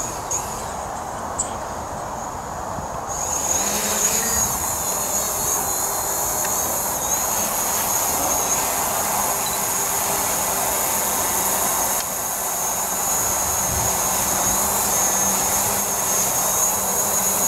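DJI Mavic Pro quadcopter's four propellers starting up about three seconds in, then a steady high-pitched buzzing whine as it lifts off and hovers.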